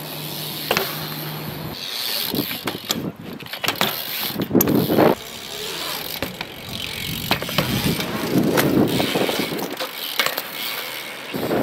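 BMX bike riding on a concrete skatepark: tyres rolling and scrubbing on the concrete, with several sharp knocks and clacks from the bike hitting the ramp. Wind buffets the microphone.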